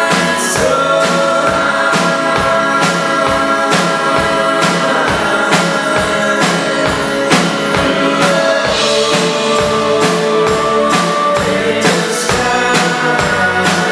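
Live band playing a pop-rock song, with held chords and a steady drum beat of about two hits a second.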